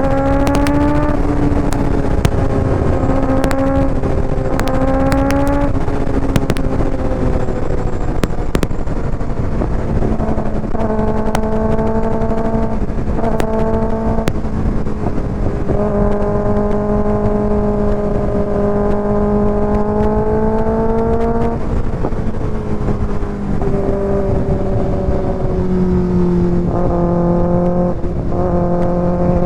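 2024 Kawasaki ZX-6R inline-four running through an aftermarket IXIL exhaust while riding. The revs climb and drop in short steps several times in the first few seconds, hold long, slowly rising pulls in the middle, and step up again in quick succession near the end. A steady rush of noise runs underneath.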